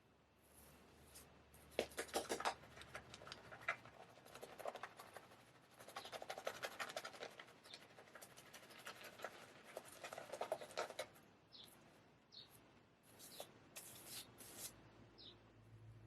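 Straight razor scraping through beard stubble in a run of short, crackling strokes, each about a second long.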